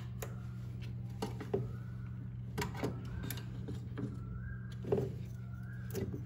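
Scattered light clicks and knocks of a DDR4 RAM module being handled and pressed into a motherboard slot, over a steady low electrical hum.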